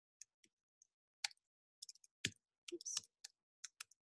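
Computer keyboard being typed on: faint, irregular clicks of single keystrokes as a line of text is entered.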